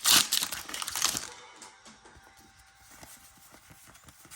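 Crinkly trading-card packaging rustling loudly for about a second, then softer handling of cards with faint light taps.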